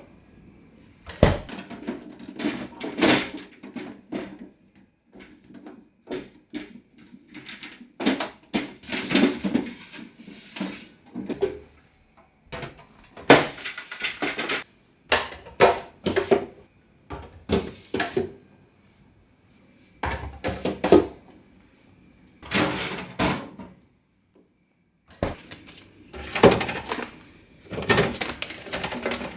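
Irregular clatter and knocks of refrigerator shelves, drawers and food containers being taken out, set down and pushed back, with occasional door or drawer thunks.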